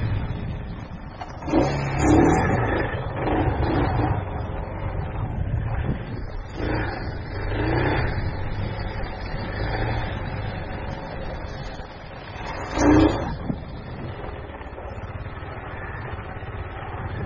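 Motorbike engine running as the bike rides over rough ground, surging louder with throttle several times, most strongly about two seconds in and again about thirteen seconds in.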